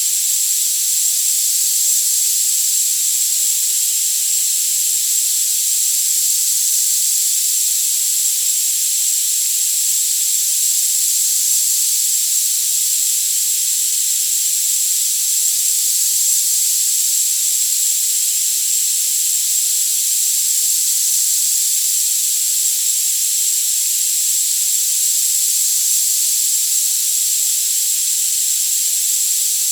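High-frequency tinnitus-masking sound: a steady, even hiss with no low sound at all, and a thin high tone running unbroken through it.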